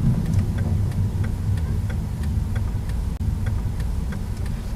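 A car's turn-signal indicator ticking evenly, about three ticks a second, over the low rumble of the engine and tyres as the car makes a right turn.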